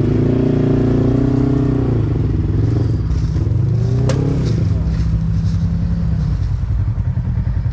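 Side-by-side UTV engine revving up and back down twice, then settling to a pulsing idle, with a single sharp click about four seconds in.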